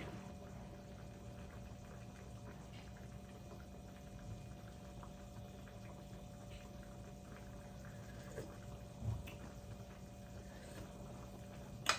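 Pot of soup simmering faintly on the stove, over a steady low hum, with a few small taps and ticks.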